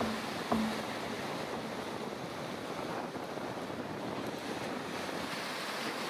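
Stormy sea surf: waves breaking and washing foamy water up the shore in a steady rush. A last note of background music dies away in the first second.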